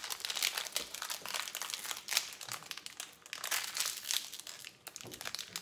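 Packaging of a small Disney Doorables toy figure crinkling and crackling as it is handled and unwrapped, in an irregular run of crackles.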